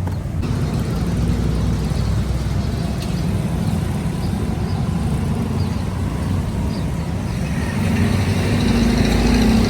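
Steady low motor rumble with a background hiss, growing louder near the end as a steady engine hum comes in.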